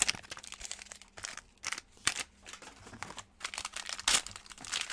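Trading card pack wrappers crinkling and tearing as Panini Hoops packs are opened, in irregular crackling bursts.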